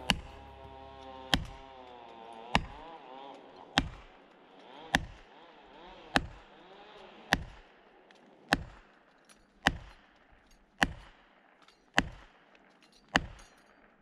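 Axe poll hammering a felling wedge into the back cut of a large conifer, twelve sharp metallic blows about 1.2 seconds apart; the wedge is being driven to tip the tree against a lean the faller misjudged.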